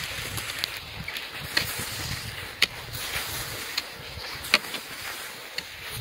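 Footsteps of someone walking on a snow-covered road, with low thumps in step and a few sharp ticks about a second apart.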